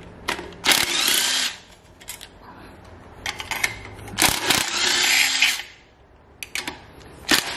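Handheld power tool run twice for about a second each, undoing the 10 mm bolts that hold an EGR cooler to the engine, with clicks of metal on metal between the runs.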